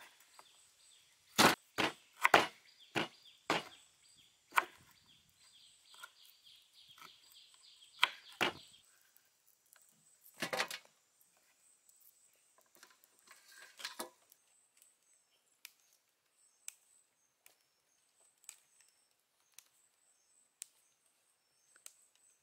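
Large knife chopping galangal root on a wooden cutting board: a run of sharp, irregular chops through the first several seconds, a couple more knocks around ten and fourteen seconds in, then only faint scattered ticks.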